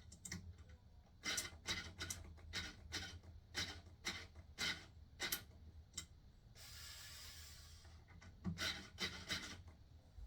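A person panting hard with effort, short breaths about two or three a second while straining at a stubborn bed-frame screw, then a longer rushing sound of a little over a second, then a few more breaths.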